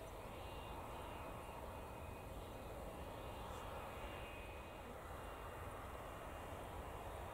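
Business jet's rear-mounted turbofan engines running at a distance, a faint steady hum with a thin high whine.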